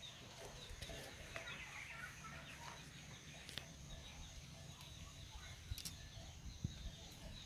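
Faint chickens clucking in the background, with a couple of light clicks.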